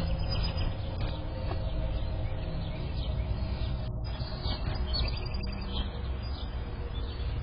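Outdoor ambience picked up by a doorbell camera's microphone: a steady low rumble and hiss, with a few faint bird chirps.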